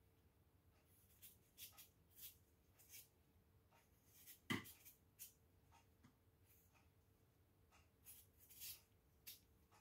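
Faint scraping of a kitchen knife paring the skin off a raw potato, short irregular strokes, with one sharper knock about four and a half seconds in.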